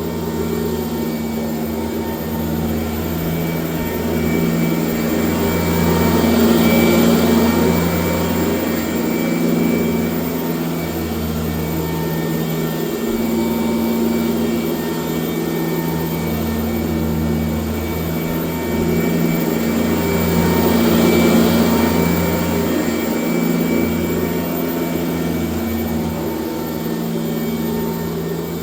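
1996 Sanitaire S663 Type A vacuum cleaner running steadily while vacuuming, a constant motor drone with a high whine, its level swelling gently twice as it moves.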